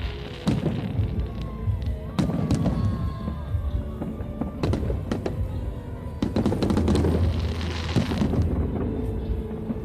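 Fireworks salute going off: a string of sharp bangs about one and a half to two seconds apart, each trailing off in a low rumble.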